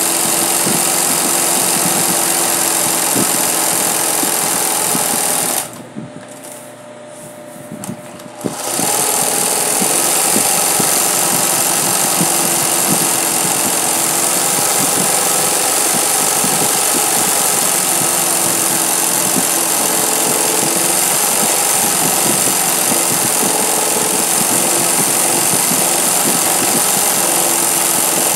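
20U industrial zig-zag sewing machine running at speed, its needle stitching free-motion embroidery through fabric stretched in a hoop. It stops for about two and a half seconds around six seconds in, then starts sewing again.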